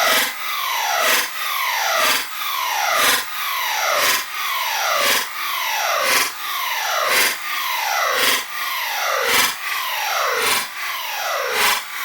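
Version 2 airsoft gearbox cycling under its motor, heard slowed down: a rasping mechanical grind that repeats about once a second, each cycle a click followed by a falling whine.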